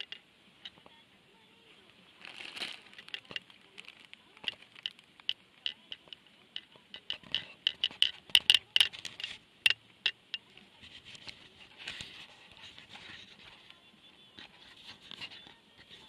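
Plastic instant-ramen packet crinkling and rustling as it is handled: a run of sharp crackly crinkles that is densest a little past halfway, then softer rustling.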